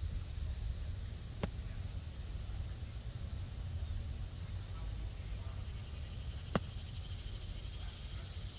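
Steady low wind rumble on the microphone with a steady high hiss, broken twice by a sharp click about five seconds apart.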